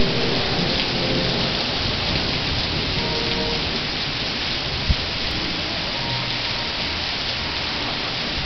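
Heavy rain pouring steadily and hitting surfaces during a rainstorm, with one brief low thump about five seconds in.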